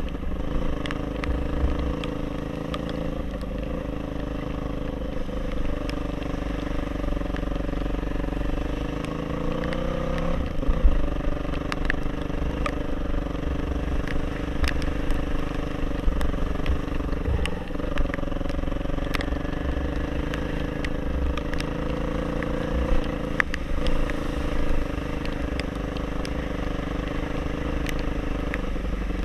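Off-road motorcycle engine running at a fairly steady pitch that rises and falls a little, over a low rumble, with scattered sharp clicks and knocks.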